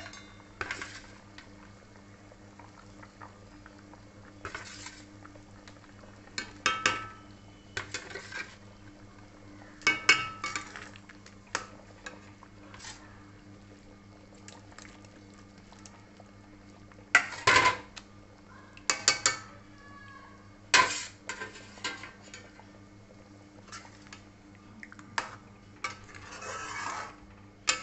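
A metal spoon clattering and scraping against a kadai as fried paneer pieces are added and stirred into boiling spinach gravy. It comes in irregular bursts of sharp knocks, loudest about ten, seventeen and twenty-one seconds in, over a steady low hum.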